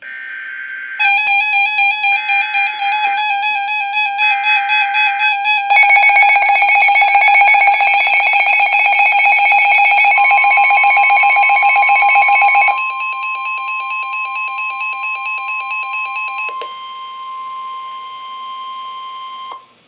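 Emergency Alert System tones. Three short bursts of buzzing data noise open the alert, over a pulsing electronic alarm tone. The alarm gets louder about six seconds in and drops back about thirteen seconds in, a steady single tone joins about ten seconds in, and everything cuts off just before the end.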